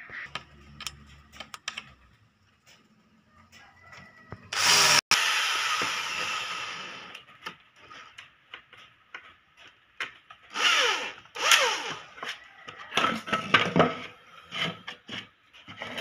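Handheld corded electric drill boring into a wooden board in several short runs, the first one fading away over a couple of seconds after the trigger is released. Light knocks of wooden slats being handled come in between.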